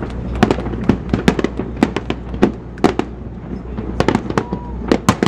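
Fireworks display: a rapid, uneven string of sharp bangs and crackles from bursting shells, several a second.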